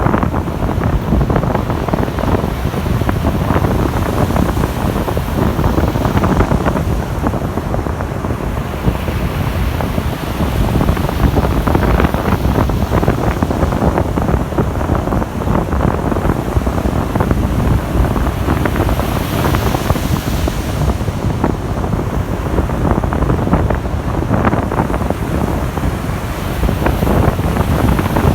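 Wind buffeting the microphone with a heavy, steady rumble, over Baltic Sea surf washing onto a sandy beach; the hiss of the waves swells briefly about two-thirds of the way through.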